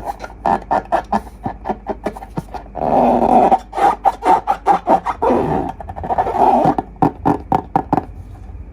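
Slime being squeezed and kneaded by hand, with wet squelching and rapid little pops and clicks of trapped air. The squishing comes in several longer stretches between quick runs of pops, and stops shortly before the end.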